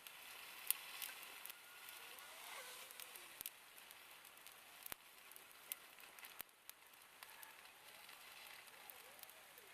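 A dying bonfire crackling, with irregular sharp pops and snaps over a faint steady hiss.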